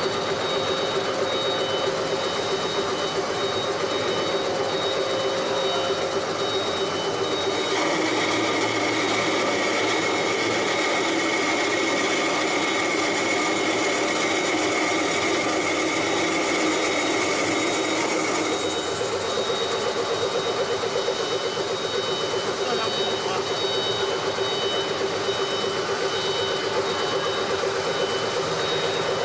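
CNC turning lathe running steadily with a constant whine. For about ten seconds in the middle, a higher whine and hiss join in, then drop away.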